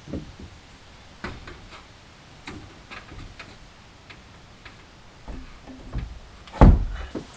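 Irregular knocks and taps, a few a second apart, with one loud knock near the end.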